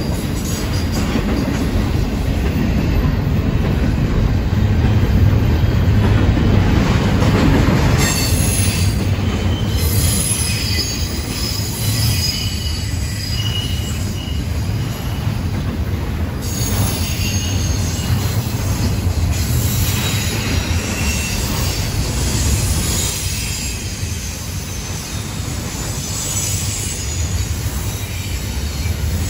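Double-stack intermodal freight train's container cars rolling past: a steady, loud rumble of steel wheels on rail, with thin high wheel squeals coming and going.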